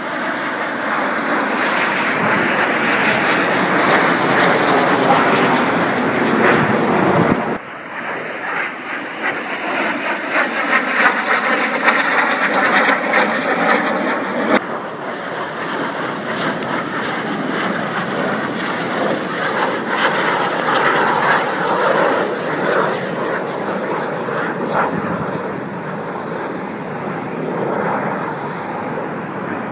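CT-114 Tutor jets, each with a single J85 turbojet, flying past: a loud, continuous jet rush with a slow sweeping, phasing quality as they pass. The sound cuts abruptly to a quieter passage about a quarter of the way in, and again about halfway.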